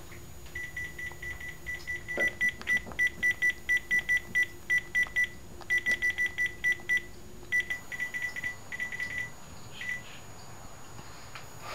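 Mobile phone keypad beeping as keys are pressed: short high beeps, about four to five a second, in runs broken by brief pauses, stopping about two seconds before the end.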